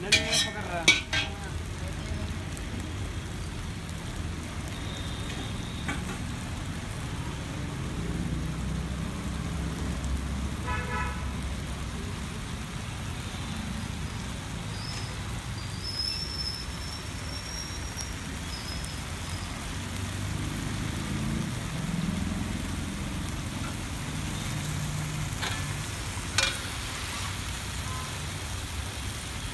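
Steady low rumble of street traffic, with sharp metal clanks of a spatula against a wok twice near the start and once near the end. A brief horn toot sounds about 11 seconds in.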